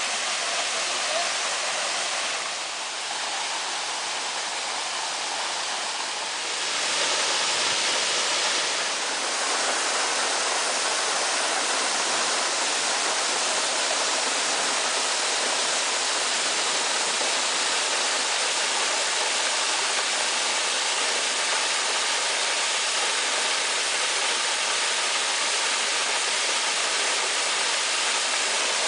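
Waterfall rushing steadily, a dense, even hiss of falling water. It dips a little for a few seconds near the start, then comes back fuller about seven seconds in.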